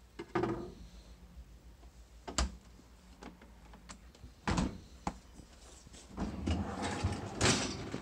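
Refrigerator being handled. A plastic door bin rattles at the start, a sharp click and a thump follow as the door is pushed shut, and near the end the bottom freezer drawer slides open with a rumble for about a second and a half, ending in a loud clunk.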